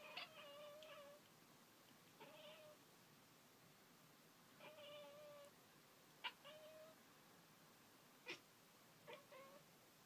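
Domestic cat chattering at birds: a run of quiet, short chirping calls every second or two, with a few sharp clicks among them. It is the excited response of a cat watching prey it cannot reach.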